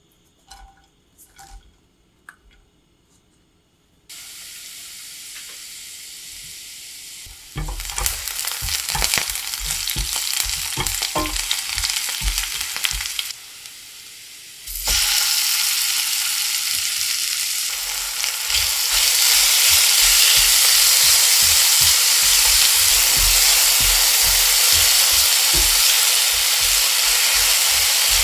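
Food frying in oil in a nonstick frying pan. A few soft clicks, then the oil starts sizzling about four seconds in. Chopped green vegetables fry with a spatula stirring and knocking against the pan. About halfway through, kimchi goes in and the sizzle gets much louder as it is stirred.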